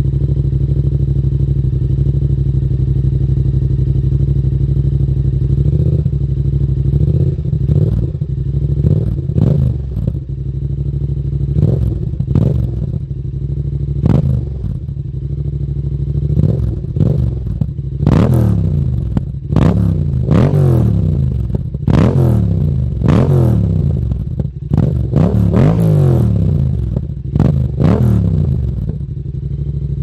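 Yamaha XSR700's 689 cc parallel-twin engine running through an aftermarket exhaust. It idles steadily for about six seconds, then is revved in short throttle blips, each rising and falling quickly, which come more often and more strongly in the second half.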